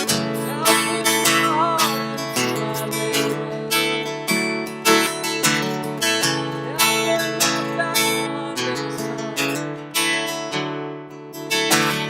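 Acoustic guitar strummed in a steady rhythm of chords, a strum every half second or so, dipping briefly quieter near the end.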